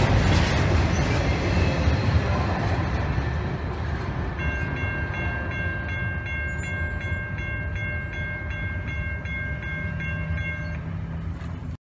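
A train passing and slowly moving away, a heavy low rumble of wheels on rail that fades, with a short louder burst at the very start. From about four seconds in a high ringing repeats evenly about three times a second, and everything cuts off suddenly near the end.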